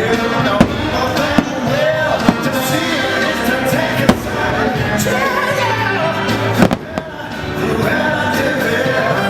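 Fireworks show soundtrack music played over loudspeakers, with sharp firework bangs cutting through it about five times; the loudest comes near the seven-second mark.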